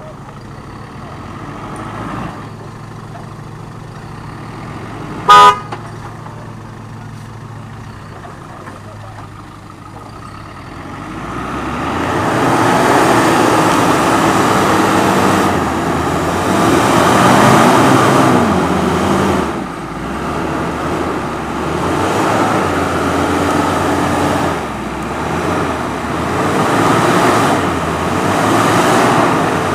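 Land Rover Discovery's engine running low and steady, with one short, very loud horn toot about five seconds in. From about eleven seconds the engine revs up hard and rises and falls under load as the 4x4 climbs out of a muddy rut.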